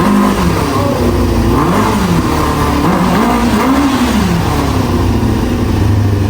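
1995 Kawasaki ZX-6R's inline-four engine running and being revved over and over, its pitch repeatedly rising and falling. It now runs after its carburettors were cleaned out again.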